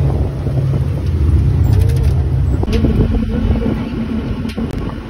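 Open safari vehicle running along a park road, a steady low rumble with wind buffeting the microphone; a faint steady engine tone comes in about halfway through.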